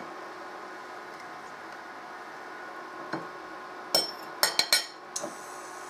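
A metal fork clinking against a ceramic plate as baked chicken rolls are shifted on it: one tap about three seconds in, then a quick cluster of sharp clinks a second or so later, over a steady low hum.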